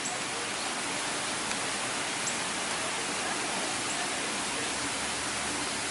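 Steady rush of falling water, as from a waterfall in an indoor rainforest exhibit, at an even level throughout.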